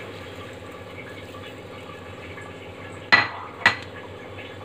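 Two sharp metallic clinks about half a second apart, a steel utensil knocking against a stainless steel cooking pot, over a steady faint hiss.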